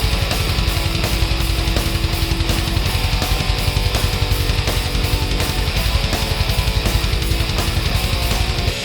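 Background rock music: loud electric guitar over a fast, driving beat.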